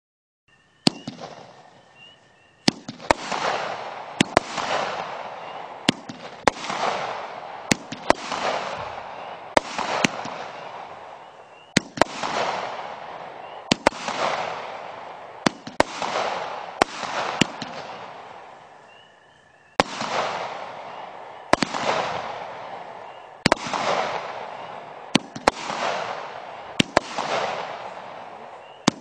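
'Massive Destruction' multi-shot consumer fireworks cake firing shot after shot, about one every one and a half to two seconds. Each shot is a sharp bang followed by a crackle that dies away over a second or so, with a short lull about two-thirds of the way through.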